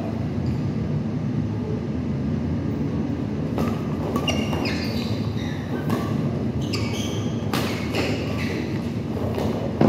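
Badminton rally: from about three and a half seconds in, sharp racket-on-shuttlecock hits come every second or so, with short squeaks of sneakers on the court floor. Underneath runs a steady low rumble in the hall.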